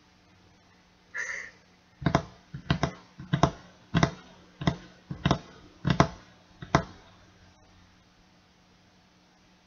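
A long-nosed utility lighter's trigger clicking about a dozen times, some clicks in quick pairs, at roughly two a second, as the flame is lit over and over. A short hiss comes just before the clicking starts.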